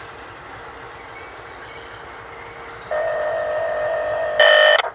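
Air horn of an approaching CSX diesel freight locomotive: a long steady blast of several tones together, starting about three seconds in and growing louder for its last half second. Before it, the locomotive and train run steadily.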